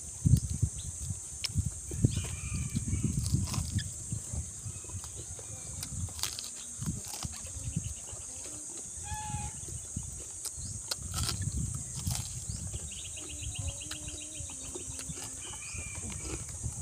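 Close-up chewing and crunching of crispy deep-fried pork knuckle, with lip smacks, busiest in the first few seconds and again about ten seconds in. A steady high insect drone runs underneath, with scattered bird calls and a rapid trill near the end.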